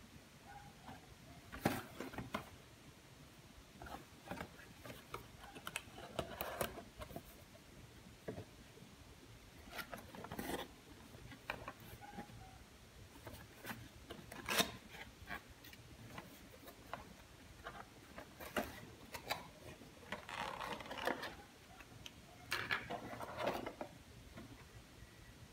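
Cardboard packaging being handled and opened: scattered taps, scrapes and rustles as a box is unfolded and the stock AMD CPU cooler is lifted out of it.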